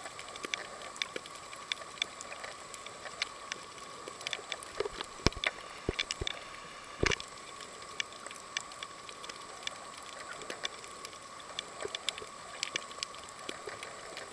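Underwater sound over a rocky reef: scattered sharp clicks and crackles at an irregular pace over a steady hum, with a few louder knocks about five to seven seconds in.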